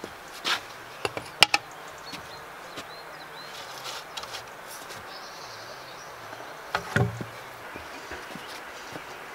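A wooden window frame being handled: a few sharp wooden knocks and clicks in the first second and a half, and a heavier thump about seven seconds in.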